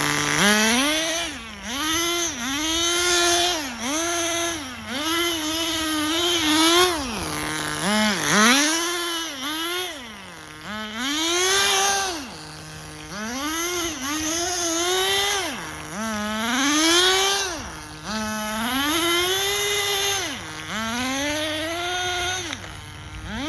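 Tamiya TGS-R nitro RC car's small glow engine revving hard and falling back to idle again and again, about every one and a half to two seconds, as the car is driven.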